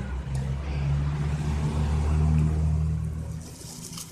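A motor vehicle engine running close by, a low hum that swells to its loudest about two seconds in and then fades. Plastic wrap crinkles near the end.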